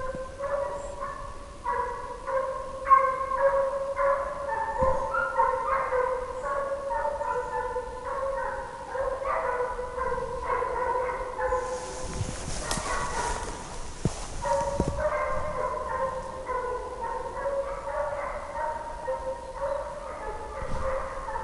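Scent hounds giving tongue on a fox's track: a steady run of yelping bays, two or three a second. The bays are briefly covered by a rush of noise about twelve seconds in.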